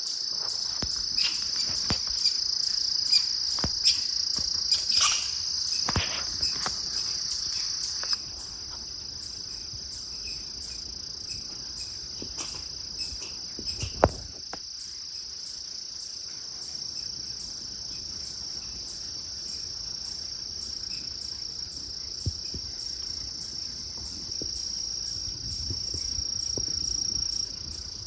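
Crickets chirping in a steady high-pitched chorus, with scattered small clicks and rustles, and one sharp snap about halfway through. The chorus drops in level about a third of the way in.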